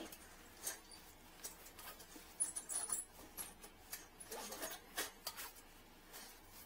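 Faint handling noise: scattered small clicks, taps and rustles, with a few brief high squeaks about two and a half seconds in.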